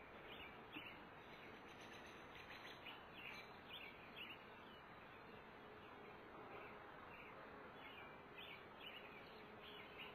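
Faint buzzing of honeybees flying around an opened brood frame, a low steady hum, with short high chirps scattered throughout.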